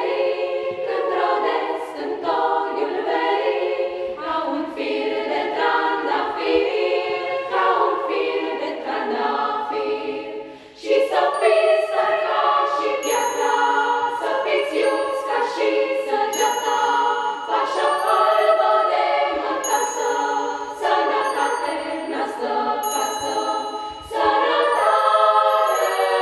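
Children's choir singing a Christmas carol in many parts. From about halfway through, small high bells ring repeatedly along with the voices.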